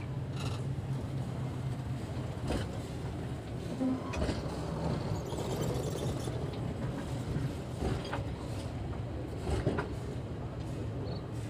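Passenger coaches rolling slowly past at walking pace during shunting: a steady low rumble with scattered sharp clicks and clanks as the wheels cross a bolted rail joint.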